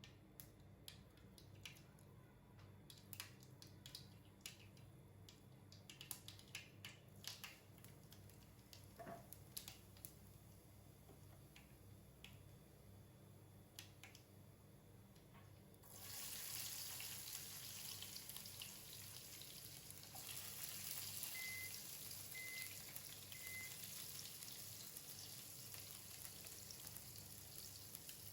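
Faint light clicks and taps of kitchen utensils, then about halfway through a steady sizzle of frying starts as food goes onto a hot pan, with three short beeps partway through the sizzle.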